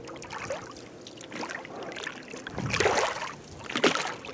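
Oars splashing and pulling through water as a small rowboat is rowed, with two louder strokes about a second apart in the second half.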